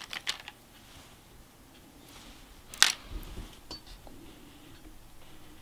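Small plastic clicks of an IV catheter and its cap being handled and secured on a dog's foreleg, with one sharp click about three seconds in.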